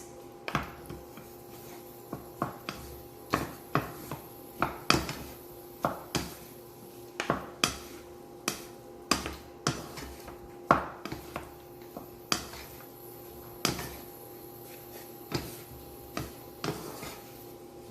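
A spatula knocks and scrapes against a pan as fried rice is stirred and tossed, in irregular sharp clicks about one or two a second, over a faint steady hum.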